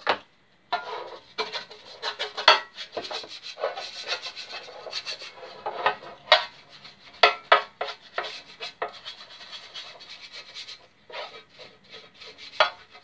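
Pastry brush scrubbing margarine over the inside of a metal loaf tin in quick, irregular strokes, a scratchy rubbing sound with a short pause near the end.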